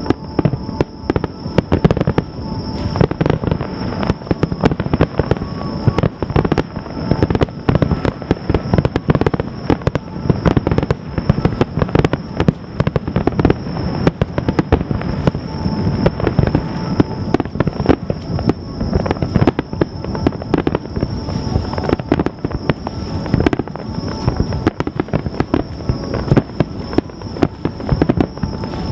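Fireworks finale: a rapid, continuous barrage of shell bursts, many bangs a second with no let-up, over a faint steady high-pitched tone.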